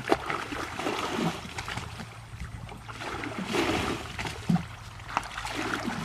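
Water splashing and trickling in irregular surges, with a few sharp knocks, about a second apart near the end.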